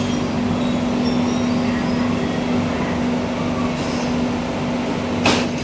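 BTS Skytrain train standing at a station platform: a steady electrical hum over a noisy rumble, with one sharp click about five seconds in.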